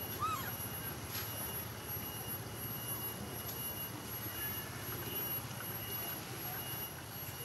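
Steady outdoor background: a low hum under a few thin, steady high-pitched tones, with one short squeaky chirp that rises and falls just after the start.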